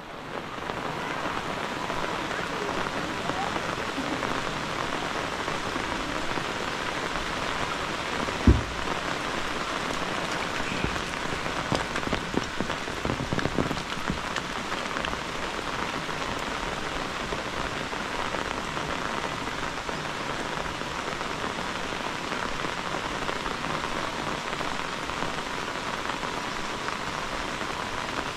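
Steady rain falling on roof tiles, leaves and a stone lane, an even dense patter. A single sharp knock about eight seconds in, and a few lighter knocks a few seconds later.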